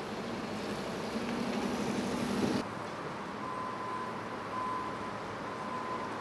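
Road traffic noise with a low engine hum that swells, then stops abruptly about two and a half seconds in. After that, quieter traffic noise with a repeated high electronic beep, each beep about half a second long.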